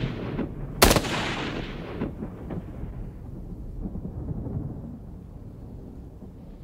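A single gunshot about a second in, ringing out with a long echoing tail, then a low rumble.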